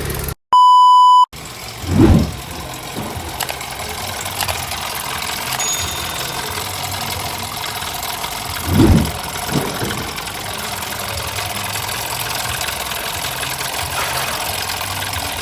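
Car engine idling steadily, with two brief louder low surges. A loud electronic beep lasting under a second comes right at the start.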